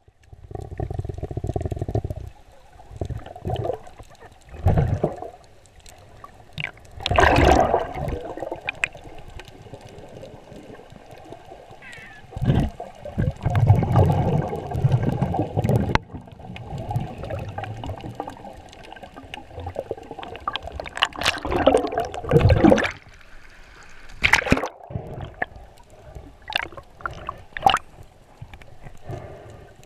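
Muffled water sound heard through an underwater camera housing: gurgling and sloshing that come and go in uneven surges, with scattered sharp clicks.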